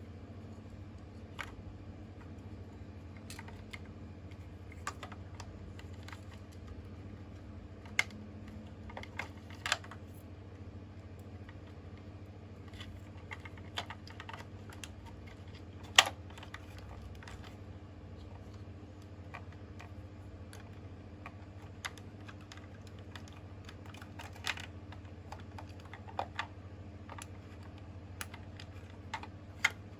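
Small objects being handled, giving scattered light clicks and taps at irregular intervals, with one sharper click about halfway through. A steady low hum lies underneath.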